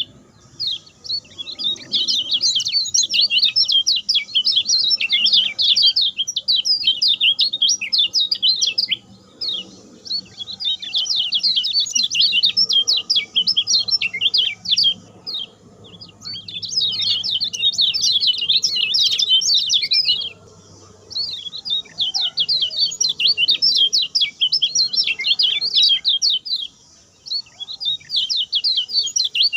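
Kecial kuning singing its fast, short song: rapid high twittering chirps in long runs, broken by brief pauses about every five or six seconds.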